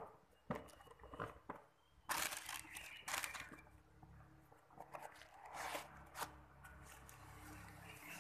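Shoebox tissue paper rustling and crinkling in several short bursts as a leather shoe is lifted out and handled, with a few light clicks and knocks from the box near the start.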